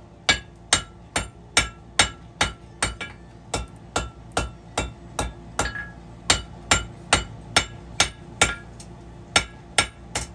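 Blacksmith's hammer striking hot horseshoe steel on an anvil in a steady rhythm, about two and a half blows a second, each with a short metallic ring. The smith is drawing out the belly of a knife blade.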